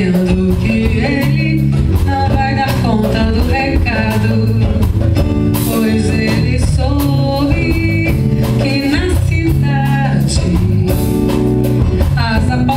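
Live band music with guitar, bass notes and a steady beat under a wavering melody line.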